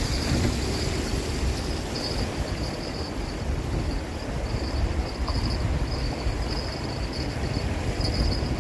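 Steady rushing outdoor noise with a low rumble, and insects chirring in a thin high band that comes and goes.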